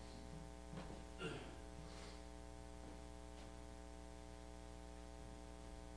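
Near-quiet room tone with a steady electrical hum. A couple of faint short soft sounds come in the first second and a half, then only the hum remains.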